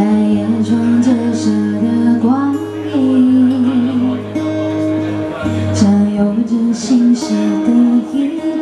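A woman sings a Mandarin pop ballad into a microphone, accompanied by acoustic guitar, in a live amplified performance.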